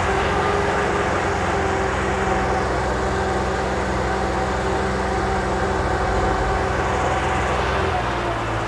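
KYMRON wheeled skid steer's engine running steadily at working throttle, with a thin whine over the engine drone; the engine note shifts about eight seconds in.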